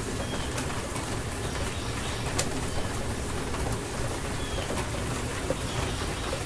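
Steady rain falling, with occasional sharper drop hits. A bird gives a few short, faint chirps through the rain.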